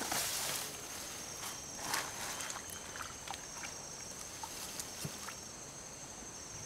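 Hands rustling through wet grass and sloshing in a shallow muddy ditch in a few short noisy bursts, the biggest at the start and about two seconds in, while feeling for a hooked line. Insects trill steadily in the background.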